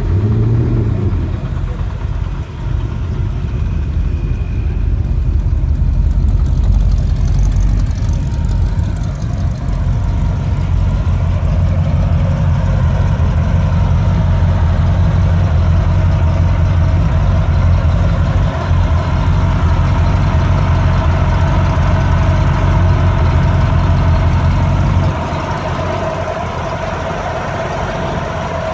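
Car engine idling steadily, low-pitched; it drops in level about 25 seconds in.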